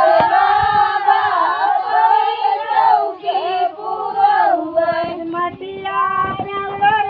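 A group of women singing a folk song together, several voices overlapping on a held, wavering melody, with a few soft thuds near the end.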